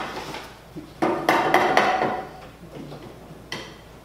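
Hammer tapping on the wooden chair parts: a quick run of four ringing blows a little over a second in, then a single blow near the end.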